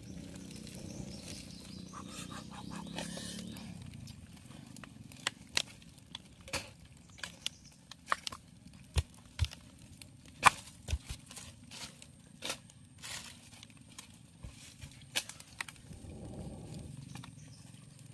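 Small campfire of dry twigs and leaves crackling, with scattered sharp snaps and pops. A low breathy rush at the start and again near the end is the fire being blown on to bring it to flame.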